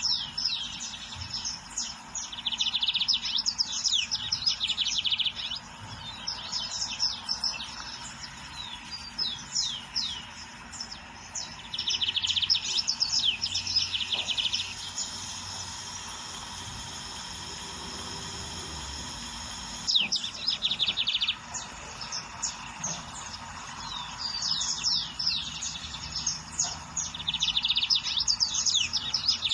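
Lined seedeater (bigodinho) singing: phrases of quick falling high notes that run into buzzy trills, repeated several times with pauses between them.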